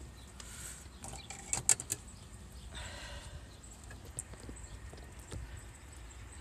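Handling noise: a few light clicks and knocks, most of them about a second and a half in, with a short rustle near the middle over a low steady rumble.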